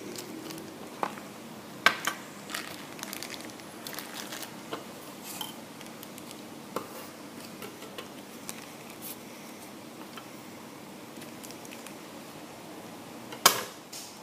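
Plastic packaging and Beyblade parts being handled: scattered sharp clicks and light crinkling, with the loudest click a little before the end.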